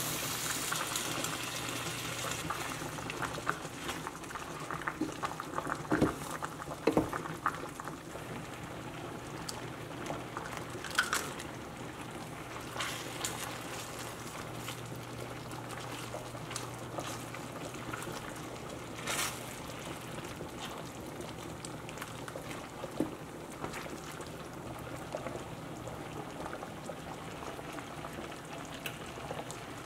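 Red curry sauce bubbling and sizzling in a stainless steel skillet, with scattered knocks and scrapes of a wooden spoon against the pan.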